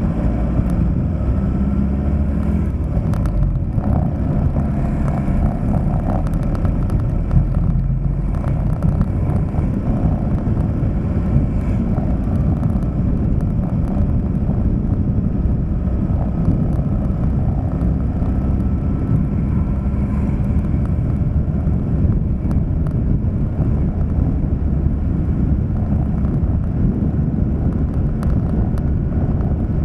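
Steady low rumble of a vehicle on the move: engine and road noise, with a few faint clicks.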